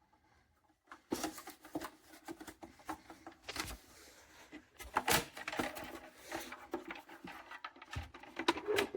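Irregular clicks, knocks and rustling of objects being handled, with a few louder knocks about halfway through.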